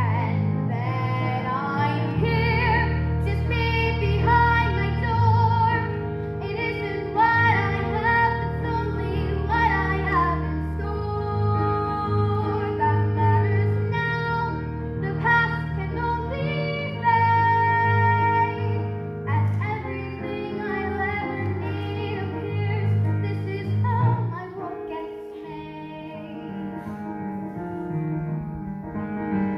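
A female vocalist singing solo with instrumental accompaniment, holding long notes over a steady low bass line. The accompaniment thins out and the music drops somewhat in level about 25 seconds in.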